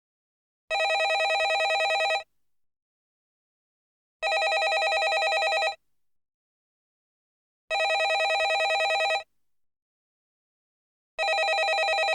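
Landline telephone bell ringing: four rings, each about a second and a half of rapid trilling, repeating every three and a half seconds with silence between; the last is still sounding at the end.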